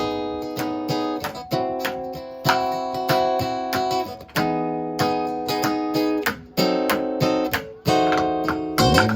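Acoustic guitar strumming chords in an instrumental passage of a live band's song, each chord struck several times before the next change.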